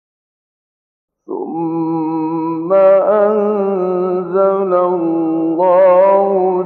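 Male Quran reciter chanting in slow, melodic tajweed style. After about a second of silence, one voice sets in and holds long ornamented notes with a wavering vibrato, gliding between pitches.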